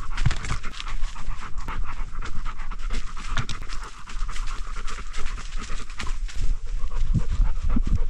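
Labrador Retriever panting hard and fast, heard very close from a camera mounted on the dog itself.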